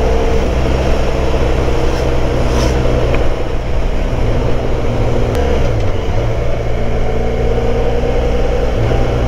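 Motorcycle engine running at a steady road speed, with wind and road noise over it. About five and a half seconds in, the engine note breaks and falls, then settles again.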